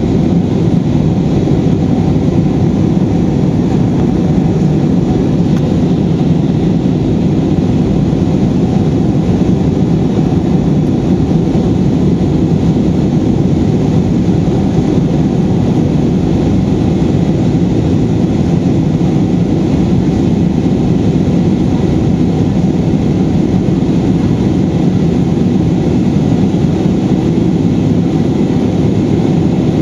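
Steady rumble of an Airbus A320's jet engines and airflow heard inside the passenger cabin, loud and even throughout.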